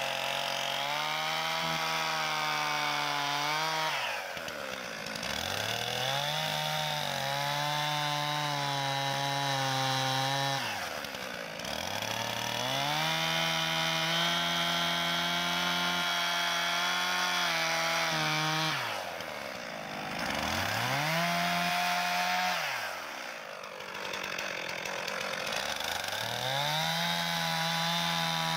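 Stihl chainsaw running at high revs while plunge-cutting a hole through pond ice. Its engine pitch drops briefly and climbs back up about four times.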